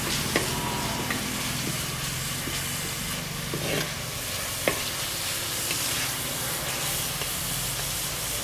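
Ginger-garlic paste and curry leaves sizzling in hot oil in a clay pot while being sautéed until they colour, stirred with a perforated metal ladle. A few sharp clicks of the ladle against the pot.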